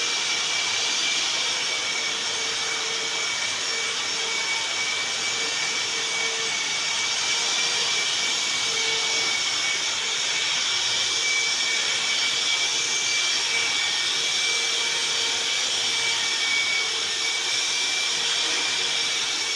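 Handheld electric drywall sander with a dust-extraction hose, its motor and suction fan running steadily as the sanding pad works across a wall. A constant whirring hiss carries a steady high whine.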